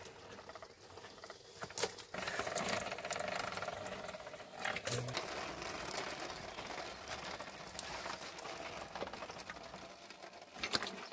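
Hand-cranked rubber sheet roller mill turning, its geared iron rollers rattling steadily as a wet sheet of coagulated latex is squeezed thin between them, with a few sharp clicks.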